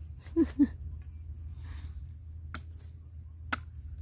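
A few sharp knocks of a sickle hacking at a freshly dug cluster of cassava roots, the two loudest close together about half a second in. Behind them, insects trill steadily on one high pitch.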